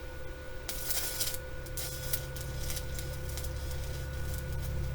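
Stick welding with an inverter arc welder: the arc crackles and sputters in short bursts, with a hissing burst about a second in, over a steady hum.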